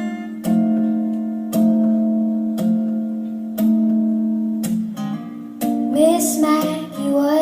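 A song playing: guitar chords struck about once a second and left to ring, with a singing voice coming in about six seconds in.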